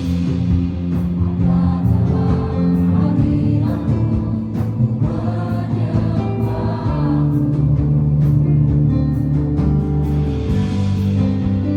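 Church worship music: a group of voices singing a gospel worship song over sustained instrumental accompaniment.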